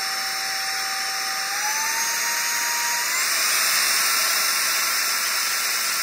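Teqqo Powerstick Plus cordless stick vacuum running with a steady rush of air and a motor whine. The whine steps up in pitch twice, about a second and a half in and again about three seconds in, growing a little louder each time, as the power mode is raised from the low eco setting.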